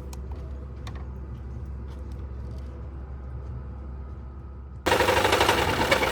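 A low steady hum, then about five seconds in a Chevy HHR's four-cylinder engine comes in suddenly and loudly, running with a fast, even rhythmic knocking. This is the knock of a bad connecting-rod bearing.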